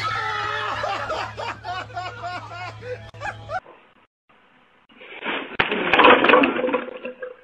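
A full black plastic garbage bag bursting and its trash crashing out and scattering over a paved driveway: a loud, dense clatter of crackles and rattles near the end. Before it come a few seconds of excited shouting voices, then a short lull.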